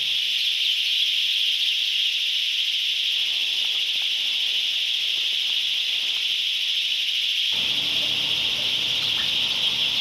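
Loud, steady, high-pitched insect buzz with no breaks in it, starting and cutting off suddenly.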